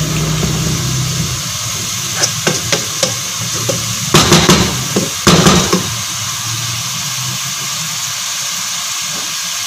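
Chopped fenugreek leaves sizzling steadily as they fry in oil in a metal pot. A wooden spatula scrapes and knocks against the pot in a run of stirring strokes between about two and six seconds in.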